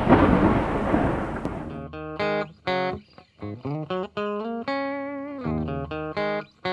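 Outro music: a loud burst of noise that fades over about two seconds, then guitar music of short, separate notes.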